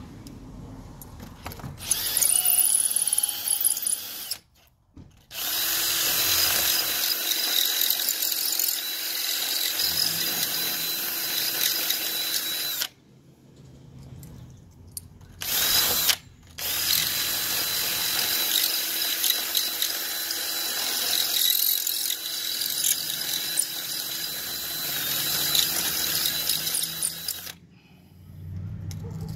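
Cordless 20V drill with a larger bit boring into a brick wall, running with a steady whine in long stretches broken by a few short pauses.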